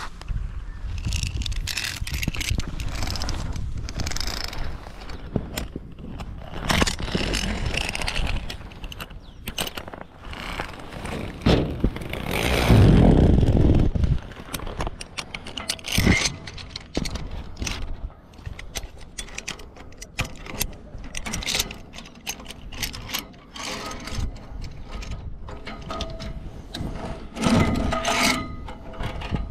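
Metal zip-line pulley and clip hardware rattling and clicking along a cable, with wind buffeting the microphone, strongest about twelve seconds in. The clicks come thicker in the second half.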